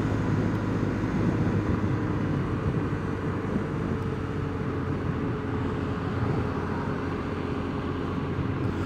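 Car being driven at steady speed: a steady engine hum with road and tyre noise.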